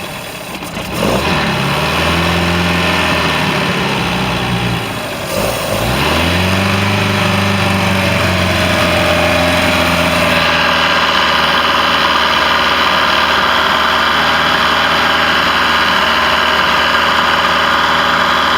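Caravelle boat's inboard gasoline engine, revved up and back down twice, its pitch rising and falling each time, then running steadily and louder.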